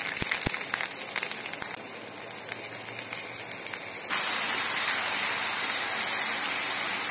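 Chopped garlic sizzling and crackling in hot oil in a frying pan. About four seconds in, a louder, steadier sizzle takes over as ground red chilli paste fries in the oil.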